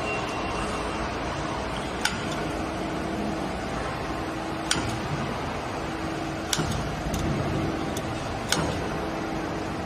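Steady machine-shop noise from CNC lathes running under test, with a faint hum that comes and goes and about six sharp metallic clicks at irregular intervals.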